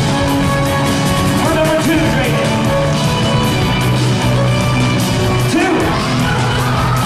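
Loud rock music with a voice singing over it.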